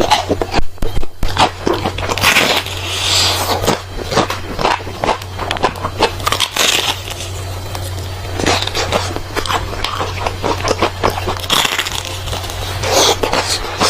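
Close-miked biting and crunching of crispy food: dense crackling chews, with louder bites every few seconds, over a steady low hum.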